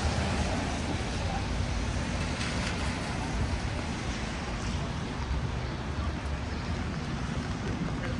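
Street traffic in the rain: cars passing on wet road under a steady hiss of rain, with a low rumble underneath.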